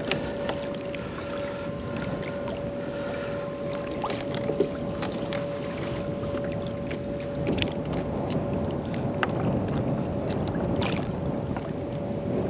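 Wind-blown chop slapping and lapping against a fishing kayak's hull, with scattered small knocks and clicks of gear being handled, over a faint steady hum.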